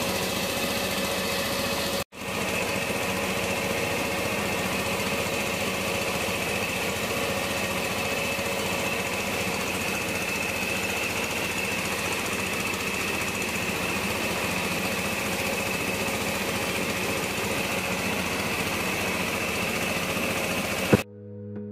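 Engine-driven rice mill (kiskisan) powered by a Kubota engine, running steadily while milling palay, a dense mechanical drone with a constant high whine over it. The sound drops out for an instant about two seconds in, and music starts at the very end.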